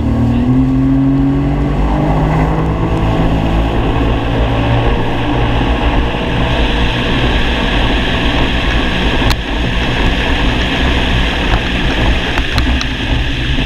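Jet ski engine accelerating, its pitch rising over the first two seconds, then running steadily at speed under a constant rush of noise. A single sharp click about nine seconds in.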